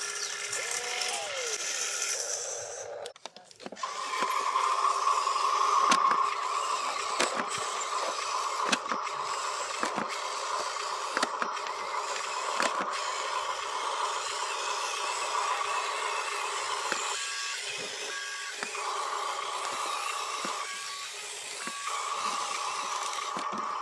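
Radio-controlled dump truck driving over dirt: a steady high electric-motor and gear whine with scattered clicks and crackles from the wheels on loose soil. The whine breaks off briefly twice in the second half.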